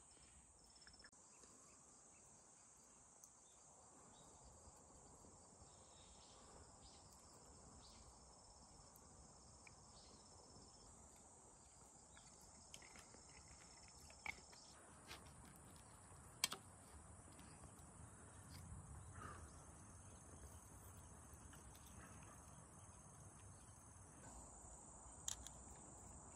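Faint, steady high-pitched chirring of insects, with a few short sharp clicks scattered through, the loudest about two-thirds of the way in.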